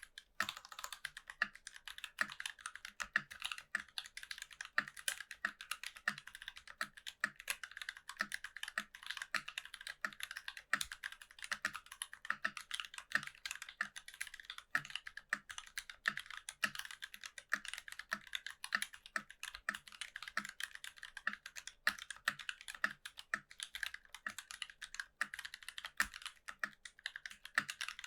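Continuous fast typing on a NovelKeys NK65 mechanical keyboard with an aluminum plate, lubed C3 Kiwi tactile switches and GMK keycaps: a dense run of keystroke clacks, with lower thuds from larger keys at a regular pace.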